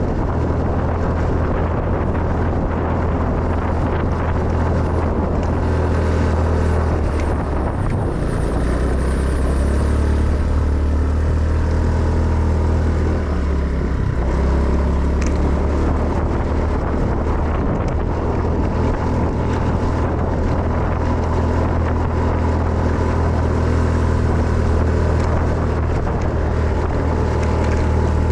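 Motorcycle engine running steadily while riding, its low note shifting a couple of times, with wind noise on the microphone.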